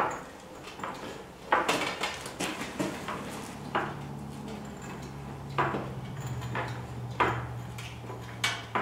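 Pittsburgh hydraulic floor jack being pumped to lift a heavy cast-iron wood cook stove on a 2x6: about six sharp metallic clanks, one every one to two seconds.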